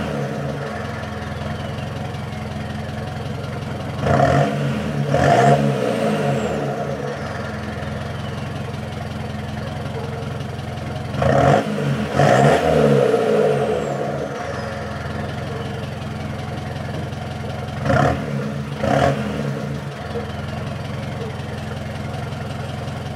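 Mitsubishi Triton DI-D turbo-diesel idling through a stock exhaust with a muffler delete pipe. It is revved in three pairs of quick blips, and after each the turbo gives a high, thin whistle that falls in pitch as the revs drop. The owner calls it a new little whistle and thinks it came with the new intercooler piping.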